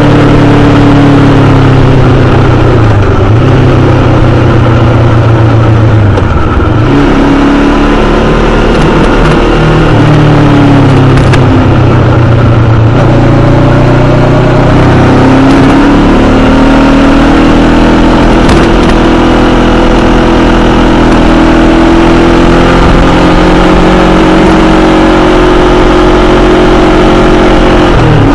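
Honda CBR500R's parallel-twin engine running on the move, its pitch rising and falling as the throttle is worked through the bends, with a quick dip and recovery near the end, over a steady rush of wind and road noise.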